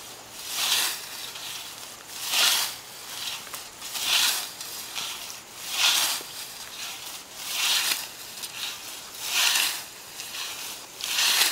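A scythe's 28-inch blade swishing through lawn grass on a slicing stroke, about seven regular strokes with a hiss of cut grass about every second and a half, with softer rustle between them.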